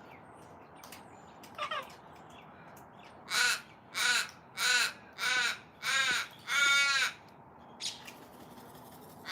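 Australian raven calling: a faint call, then a run of six loud, harsh caws about two-thirds of a second apart, the last one longer and drawn out.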